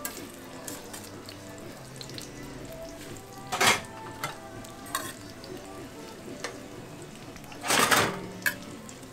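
Hotteok (Korean sweet filled pancakes) frying in oil on a flat griddle, sizzling steadily. The sizzle surges loudly twice, briefly about three and a half seconds in and for about half a second near eight seconds, with a few sharp clicks between.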